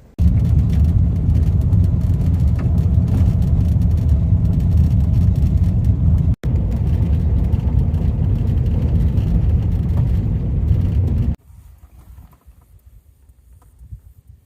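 Steady low rumble of a car on the move, with road and engine noise. It breaks off for an instant near the middle and cuts off suddenly near the end.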